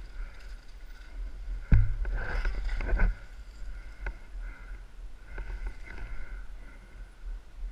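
Downhill mountain bike being ridden over a rough dirt track, with steady wind rumble on a helmet-mounted camera. About two seconds in there is a sharp knock, then a second of louder clattering as the bike rattles over bumps, and a single click a little later.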